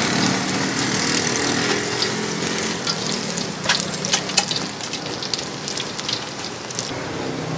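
Food deep-frying in a large steel pot of hot oil: a steady sizzle and bubbling, with sharp crackling pops of spattering oil from about three to seven seconds in.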